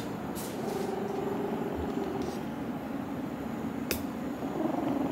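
Domestic cat purring steadily as it lies on its back being stroked, with one sharp click about four seconds in.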